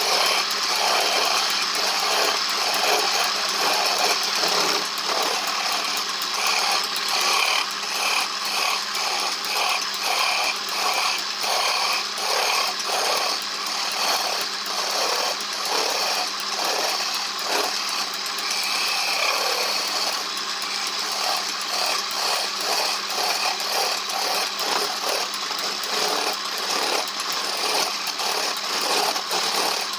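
Power tool running steadily while working wood, its sound pulsing at a regular beat as the tool is moved over the workpiece.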